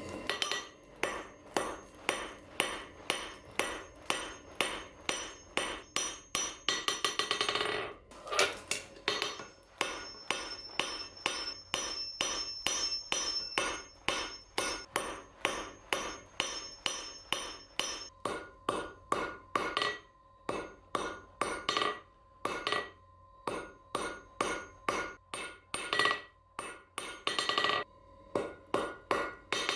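Blacksmith's hammer striking steel on an anvil in a steady run of blows, about two to three a second, with the anvil ringing between strikes and a few short pauses.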